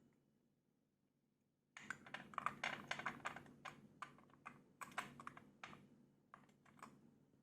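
A quick, irregular run of light clicks and taps that starts about two seconds in and stops near the end.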